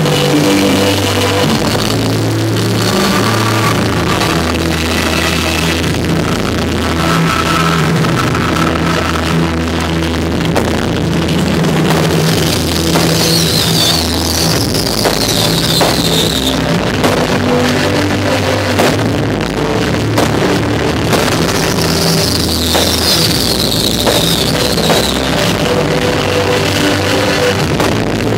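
Loud rock music with drums and guitar for a synchronized fireworks show, with a few sharp fireworks bangs cutting through it.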